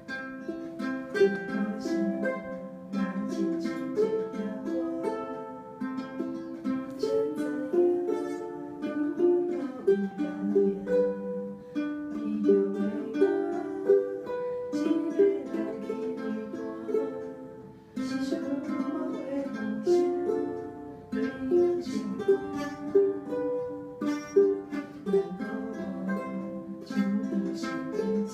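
Ukuleles playing together, plucking a melody over strummed chords, with no singing.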